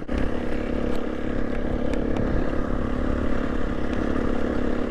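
KTM 350 enduro motorcycle's single-cylinder four-stroke engine running at a steady, unchanging note, with a low rumble underneath.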